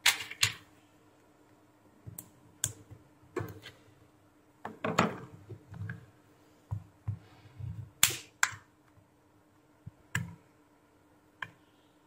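Sharp plastic clicks and taps at irregular intervals, some in quick pairs, as a phone is handled on a workbench and a plastic opening pick is worked into the seam of its case. A faint steady hum runs underneath.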